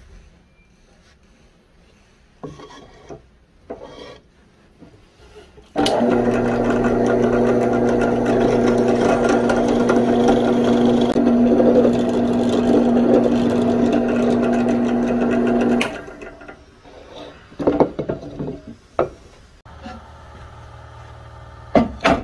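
Drill press running and boring into a hardwood knife-handle block, a loud steady motor hum with the rasp of the bit cutting wood, starting about six seconds in and stopping after about ten seconds. Scattered handling knocks and a fainter motor hum follow.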